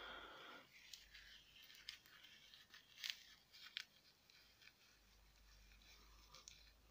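Faint crackling and rustling of dried sphagnum moss being pulled apart and crumbled between fingers into a cup of coco-fibre substrate, with a few sharper crackles.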